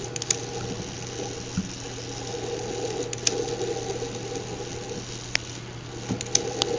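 A steady low hum with a few light clicks and taps scattered through it, from wires and small parts being handled.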